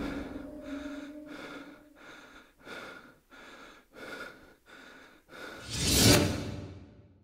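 Horror-style intro sound effects: a loud hit dying away, then a run of short breath-like puffs about twice a second, then a whoosh that swells about six seconds in and fades out.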